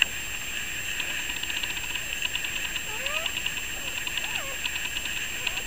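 Newborn puppies squeaking a few times, short rising and falling squeaks from about halfway through, with light clicking as they squirm, over a steady hiss.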